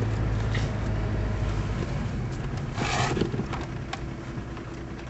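Car's engine and road noise heard from inside the cabin, a steady low hum that fades as the car slows down.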